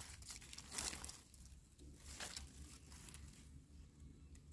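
Faint rustling and a few soft crackles of dry leaf litter and handling as freshly picked wild mushrooms are trimmed with a knife.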